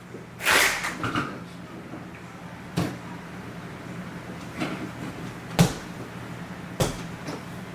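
A short hissing swish about half a second in, then scattered sharp knocks and bangs, the loudest about two-thirds of the way through, over a faint steady hum.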